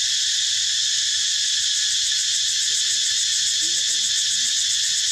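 Dense, steady chorus of insects buzzing without a break. A few faint, short low calls sound beneath it midway.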